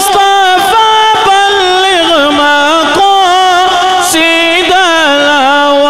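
A single voice singing long, drawn-out notes that waver and slide from pitch to pitch: a melismatic line in an Urdu devotional song.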